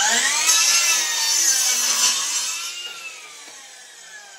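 Ryobi cordless miter saw running up and cutting through a wooden fence picket, with the blade's whine loud for the first couple of seconds. Then the blade winds down, its whine falling in pitch and fading.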